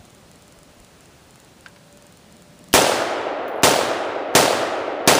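AR-15 rifle in 5.56 firing four semi-automatic shots, less than a second apart, starting a little under three seconds in, each trailing off in a long echo. The rifle cycles each round from a cheap Korean HK-clone steel magazine without a stoppage.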